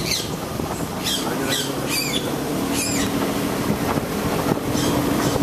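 Car engine and tyres running steadily while driving along a paved road, with several short high-pitched chirps about a second apart over the hum.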